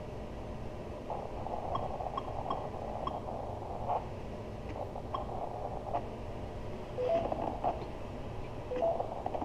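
Radio service monitor's keypad being pressed: a run of short electronic clicks and pips, over a band of hiss in the first half. Near the end come short two-note electronic beeps, one low note then a higher one, repeating about every two seconds.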